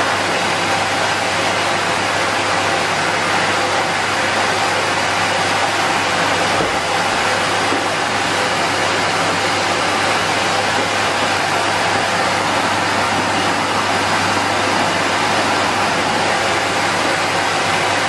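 Henry canister vacuum cleaner running steadily: an unbroken whirr of motor and rushing air with a low hum underneath.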